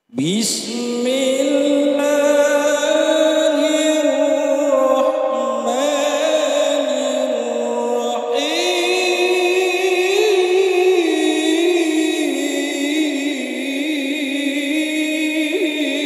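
A man reciting the Quran in Arabic in the melodic tilawah style into a handheld microphone, drawing out long, wavering, ornamented notes. The voice cuts in abruptly, and the melody steps up to a higher pitch about eight seconds in.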